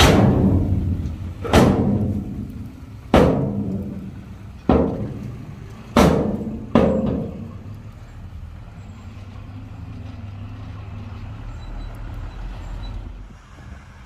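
Six loud bangs over the first seven seconds, each ringing away over about a second, the last two close together. A heavy machine's diesel engine keeps running steadily underneath and carries on alone afterwards.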